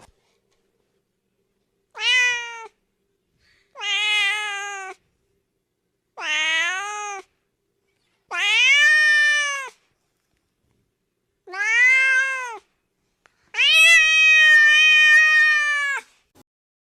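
Domestic cat meowing, six separate drawn-out meows with silence between them. The last meow, near the end, is the longest.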